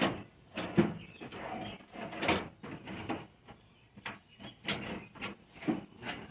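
Irregular clicks, knocks and rattles of parts being handled during hand work, about a dozen spread over the stretch.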